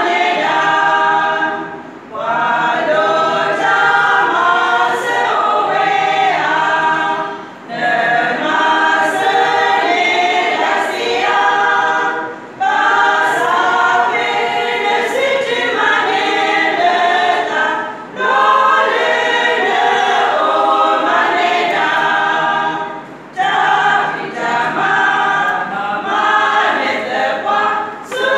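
Women's choir singing a gospel hymn a cappella, in phrases of about five seconds with brief breaks for breath between them.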